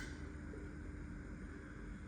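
Steady low background hum and hiss with a faint constant tone; no distinct eating sounds stand out.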